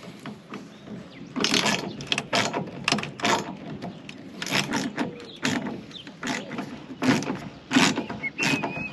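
Ratchet wrench clicking in irregular bursts as nuts are tightened onto bolts, fastening a metal arch in place.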